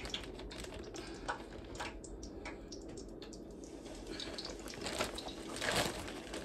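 Plastic zip-top bag crinkling and rustling as hands work neck bones around in flour inside it, with scattered small clicks and taps. The rustling gets denser and louder about five seconds in.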